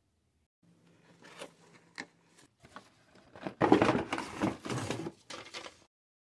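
Cardboard toy box and plastic packaging handled by hand: a few light taps and rustles with a sharp click, then about two seconds of louder scraping and rustling from about three and a half seconds in.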